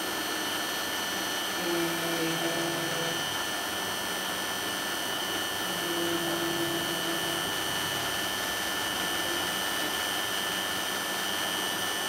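A man holding a steady sustained vowel twice, each for about a second and a half and about four seconds apart, as a patient phonates for laryngeal stroboscopy with a rigid scope in his mouth. Under it, a steady fan-like hiss with a thin high whine runs throughout and is the loudest sound.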